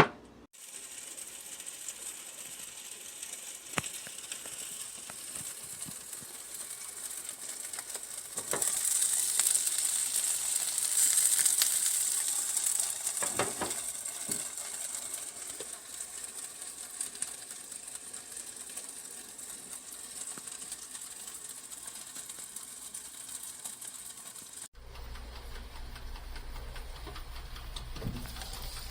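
Nostalgia 3-in-1 breakfast station hissing and sizzling while running hot, with a few faint clicks; the hiss grows louder and brighter from about 8 to 15 seconds in.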